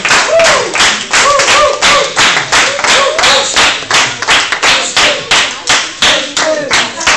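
Hand clapping in a steady, even rhythm, about three claps a second, loud and close, with voices underneath.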